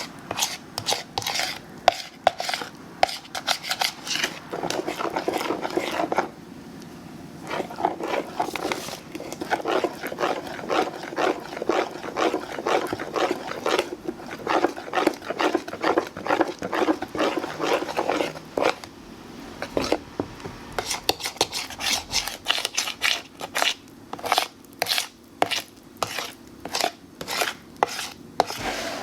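A utensil stirring thick pumpkin bread batter in a mixing bowl by hand: quick, repeated scraping and clicking strokes against the bowl, with a few short pauses.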